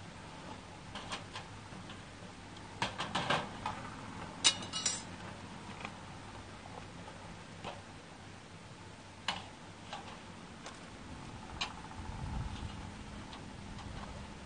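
Scattered light clicks and metallic clatter from handling a wire grilling basket and a plastic egg carton, with a cluster of knocks a few seconds in and the sharpest rattle about four and a half seconds in.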